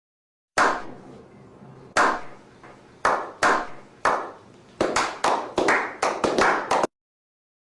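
One person clapping slowly, the claps echoing, then speeding up to a quick run of claps that cuts off abruptly: a slow-clap sound effect.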